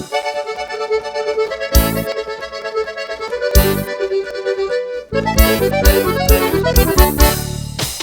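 Beiradão dance music in an instrumental break led by accordion. The bass and drums drop out for the first few seconds, leaving the melody with two accented band hits, and the full band with bass and drums comes back in about five seconds in.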